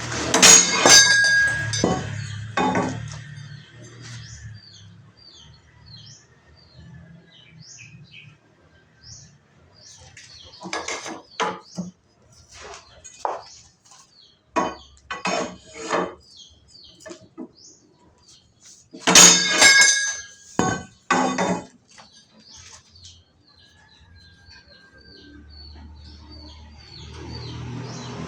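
Metal clanking and knocking from work at a manual pipe notcher press, in three bursts of sharp, ringing strikes. Small birds chirp in between.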